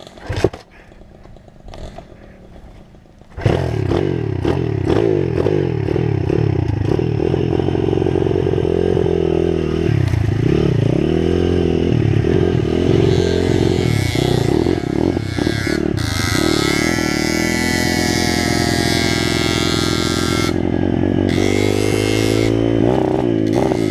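Pit bike engine catching about three and a half seconds in, then running and revving up and down as the bike rides through mud.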